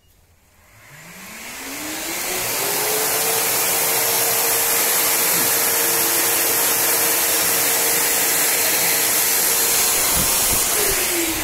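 Canister vacuum cleaner powered through an inverter, started by turning the inverter on with the vacuum's own switch already on: its motor starts about a second in and whines up to speed over a couple of seconds. It then runs steadily with a loud rush of air. Near the end there is a knock as it is switched off, and the pitch falls as it winds down.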